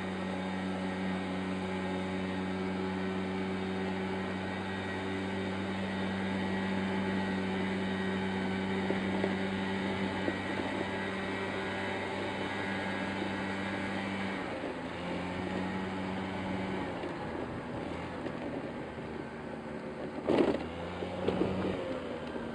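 Piaggio Zip scooter engine running steadily under way, heard from on board. The engine note eases off about two-thirds of the way through, and a brief sharp noise near the end is the loudest sound.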